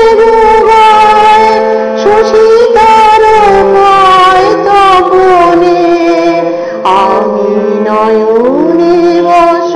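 Music from a Bengali devotional song: a melody with held notes and slow slides in pitch, including a rising slide near the end, over a steady drone.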